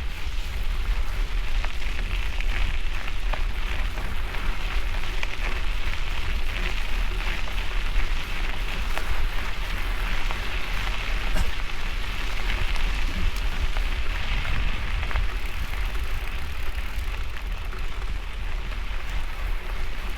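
Mountain-bike tyres rolling on a gravel road: a steady crunching hiss with small clicks of stones, over a low wind rumble on the bike-mounted microphone.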